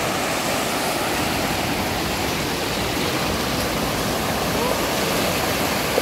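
Small sea waves breaking and washing onto a beach: a steady rush of surf.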